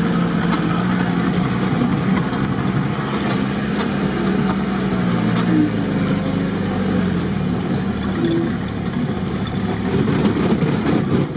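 Off-road vehicle engine running steadily, heard from inside the cab as it drives slowly along a dirt track, with a faint high whine that falls in pitch midway.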